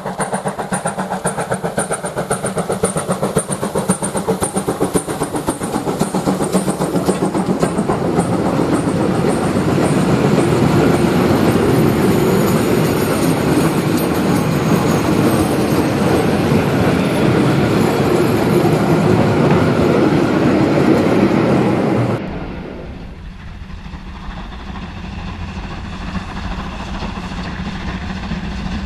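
Steam train passing: the locomotive's exhaust beats in a quick even rhythm, then the wagons roll by with a loud steady rumble and clatter. It cuts off suddenly about two-thirds of the way in, giving way to a quieter low rumble of a DB class 042 steam locomotive approaching from a distance.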